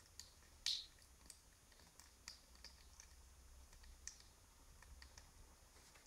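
Faint, irregular clicks and taps from an African grey parrot, with one brief, sharper, higher sound about two-thirds of a second in.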